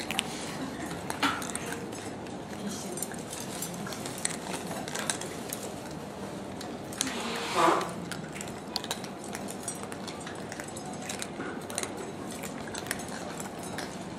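Cats eating wet food from stainless steel bowls: frequent small clinks and taps of the metal bowls as they eat. About halfway through there is one short, louder voice-like sound.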